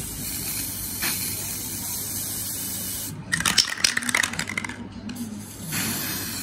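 Aerosol can of gold spray paint hissing in a long, steady spray. About three seconds in there is a second of quick rattling, and then the spray hiss starts again near the end.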